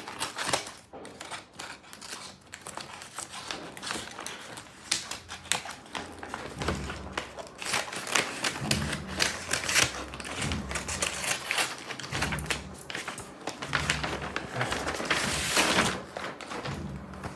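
A parcel being unpacked by hand: rapid, irregular crackling and rustling of packaging.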